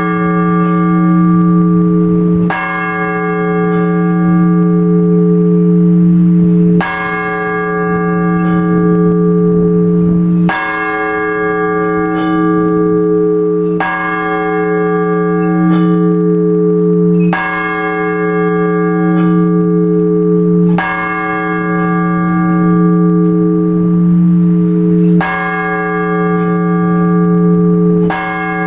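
One large Orthodox church bell struck slowly and evenly, eight strokes roughly every three and a half to four seconds. Each stroke rings on with a deep hum until the next. The single bell rung at a measured pace is the blagovest, the ringing that announces the start of a service.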